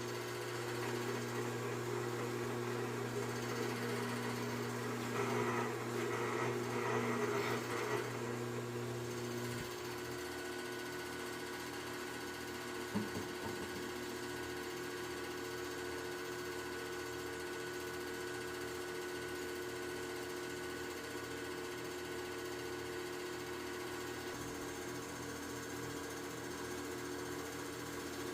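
Foundry sand muller running steadily, mixing moulding sand and clay in its drum, with a constant mechanical hum. The first eight seconds are grittier and louder; part of the low hum drops away about ten seconds in, and there is a single knock a few seconds later.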